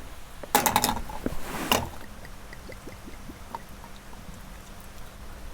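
A drink being mixed from Jim Beam bourbon and tonic water, bottles opened and poured. A short burst of hiss and rattle comes about half a second in and a sharp click just before two seconds, then faint scattered ticks.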